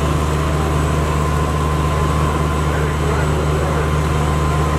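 Fire engine's engine running steadily while driving its water pump: a constant low drone with a faint steady whine above it.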